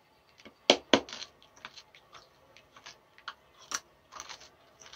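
Mouth noises from sucking on a Warheads sour hard candy: irregular wet clicks and lip smacks, with two sharper clicks close together just under a second in.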